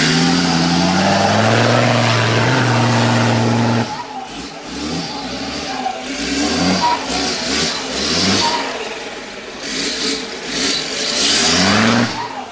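A 4x4's engine revving hard under load as it climbs a steep dirt bank: the pitch rises and holds high for about four seconds, then drops suddenly, followed by repeated shorter revs rising and falling, with another hard rev near the end.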